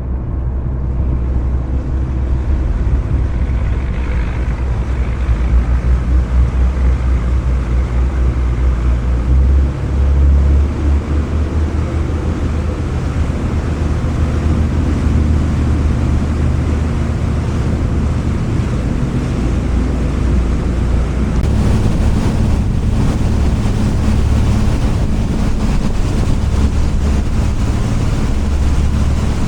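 Boat engine running with the boat under way, a steady low rumble, with wind buffeting the microphone.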